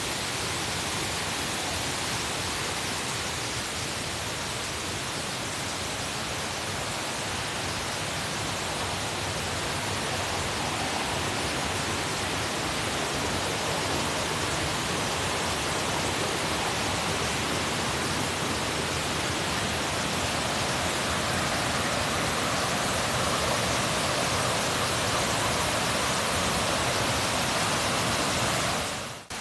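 Asama Otaki waterfall: a steady rush of falling water, growing slightly louder in the second half and dropping suddenly just before the end.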